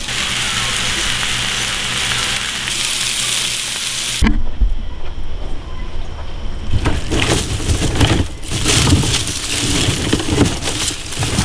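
Sliced onion and green pepper sizzling in a frying pan, a steady hiss that cuts off suddenly about four seconds in. Then come irregular low rumbling and rustling noises.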